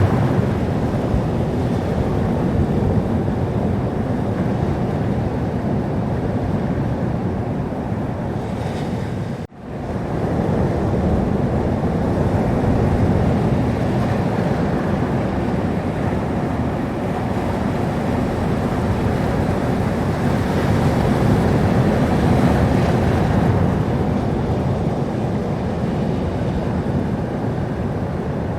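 Sea surf: waves washing onto a shore in a continuous rush of noise that swells and eases, with the sound cutting out for an instant about a third of the way through.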